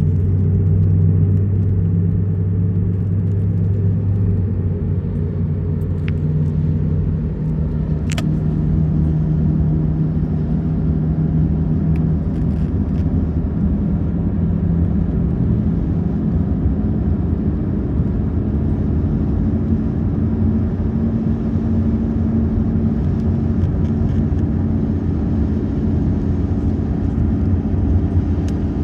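Car driving: steady engine hum over low road rumble. The engine's tone shifts in pitch about halfway through.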